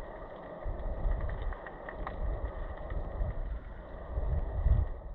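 River current heard with the microphone underwater: a low rumbling wash that swells and eases every second or so, with a few faint ticks.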